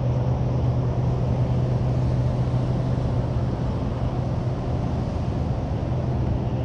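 Motorboat engine running steadily, a low even hum over water and wind noise.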